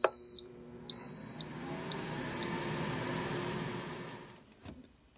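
Instant Pot Air Fryer Lid's control panel beeping three times, each beep high and steady, about half a second long and a second apart, as a 4-minute broil at 400°F is started. After the beeps, the lid's fan starts with a steady whir that dies away near the end.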